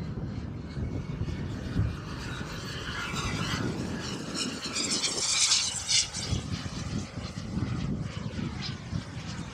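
Model jet turbine of a SebArt Avanti XS RC jet flying past: a rushing whine that swells to its loudest about five seconds in, then fades away, with wind gusting on the microphone underneath.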